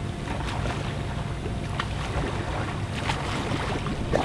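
Water splashing and rushing against the microphone while swimming freestyle laps, with scattered short splashes over a steady churning noise.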